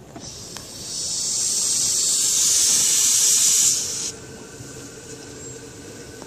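Steam hissing from a 1910 Stanley Steamer, swelling over about a second, holding for about three seconds, then cutting off suddenly.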